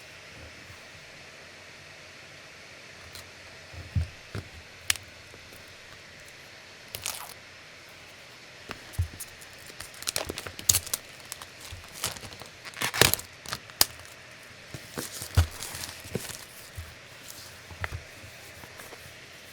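Packaging being handled and opened: irregular clicks and taps with short bursts of crinkling and tearing, busiest in the middle of the stretch.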